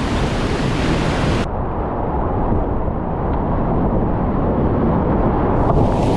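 Whitewater rapids rushing, a loud steady noise. About a second and a half in, the sound abruptly turns duller and loses its hiss.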